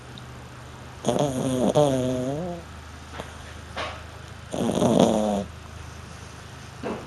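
French bulldog snoring in its sleep: two loud, pitched snores, each a second or more long and about three seconds apart, with softer short breaths between them.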